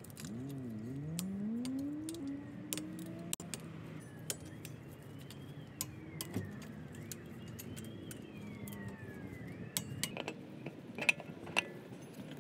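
Scattered metal clicks and clinks of wrench work on brake caliper bolts and of lug nuts being handled, the sharpest near the end. A vehicle engine rises in pitch in the background over the first two seconds.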